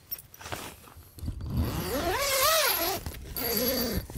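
A zipper being pulled in two long strokes, its buzz rising and falling in pitch with the speed of the pull; the second stroke is shorter and lower.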